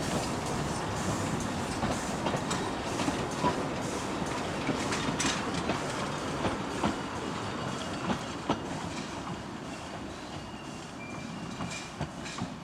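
Narrow-gauge train running on the line, its wheels knocking and clicking over the rail joints amid a steady rattling rumble. It grows quieter after about ten seconds.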